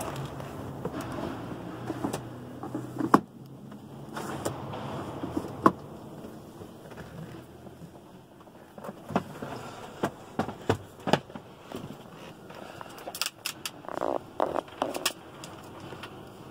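Scattered knocks, clicks and rustling from someone moving about inside a small aircraft cabin, with a faint low hum during the first half.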